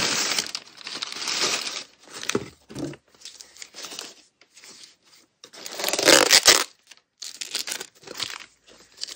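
Crumpled newspaper packing rustling and crinkling as hands pull it aside and lift plastic tubs out of a cardboard box. It comes in irregular bursts with short pauses, the loudest about six seconds in.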